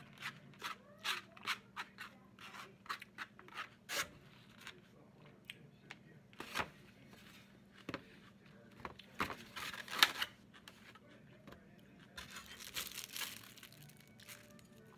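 Eating salad from a styrofoam clamshell: a plastic fork scraping and tapping in the foam container and crunching bites of salad, heard as a string of short clicks and crunches, the sharpest about ten seconds in. Plastic crinkles for a moment near the end.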